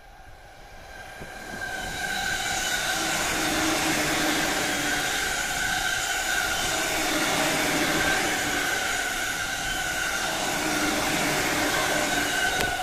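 An electric commuter train approaching and passing close by at speed. The steady rush of wheels on rail, with a faint motor whine, builds over the first two seconds and then holds as the cars go past.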